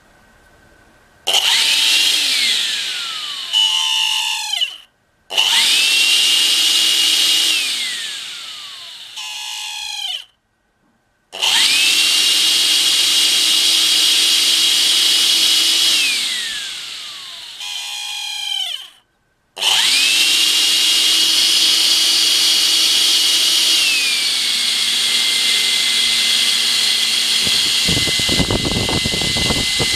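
Makita CL182FD 18V cordless vacuum's motor fan started and stopped four times, each run a steady high whine that glides down in pitch as it coasts to a stop. In the last run it drops to a lower speed, and near the end a rough low noise joins the whine. This is the abnormal motor noise the owner suspects means the motor is reaching the end of its life after two years of near-daily use.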